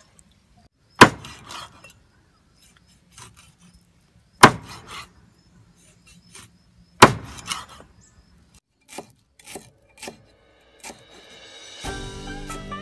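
Cleaver chopping on a thick wooden chopping block: three heavy chops about three seconds apart, then a few lighter cuts as it slices lemongrass. Plucked-string music comes in near the end.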